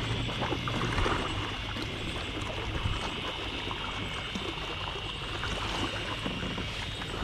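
Water splashing and trickling against a kayak hull, over a steady high hiss.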